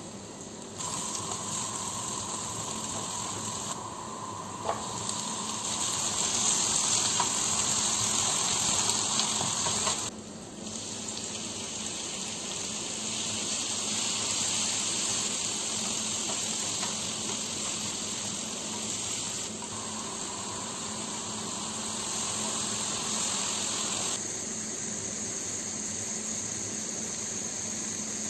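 Hissing kitchen sounds of water and cooking, in several short edited clips that each start and stop abruptly.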